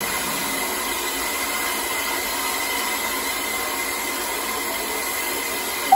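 Saddle-tank steam locomotive hissing steadily as steam escapes around its cylinders.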